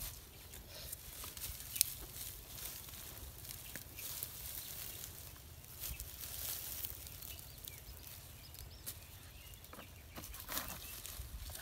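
Scattered rustles and crackles of dry straw and plants being handled, with one sharper snap about two seconds in, over a low steady rumble. A few faint high chirps come in around the middle.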